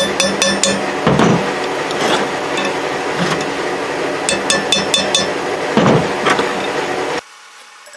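Hammer striking a steel chisel set against a cut bearing retainer ring on an axle shaft, to drive the ring off: runs of quick light taps mixed with a few heavier blows. The sound drops away suddenly near the end.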